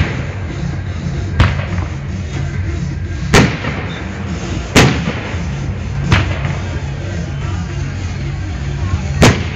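Fireworks shells bursting: five sharp bangs a second or two apart, over music with a steady low beat.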